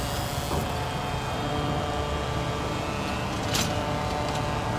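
Oil transfer pump running steadily with a hum as waste vegetable oil flows through the filter and hose into the fuel tank. One brief click about three and a half seconds in.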